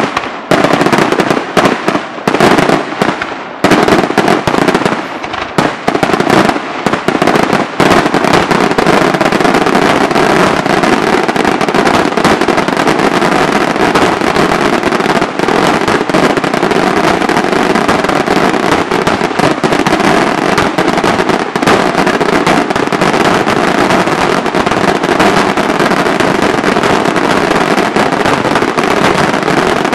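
Fireworks display: aerial shells bursting with loud bangs. About eight seconds in, the reports come so fast that they merge into one continuous dense barrage.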